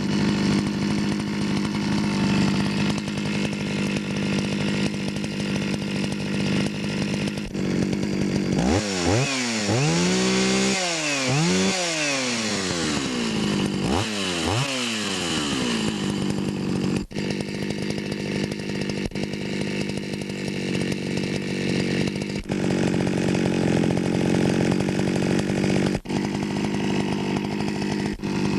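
Vintage Jonsereds 451 EV two-stroke chainsaw, warm and running on a freshly rebuilt Tillotson RK12 carburettor, starts at once and idles steadily. About eight seconds in it is revved up and down several times, then it settles back to a steady idle.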